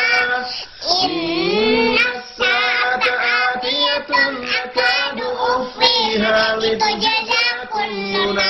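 A young girl chanting Quran recitation (tartil) in a melodic, drawn-out style, her voice holding long notes that bend up and down. A man's lower voice recites with her in places.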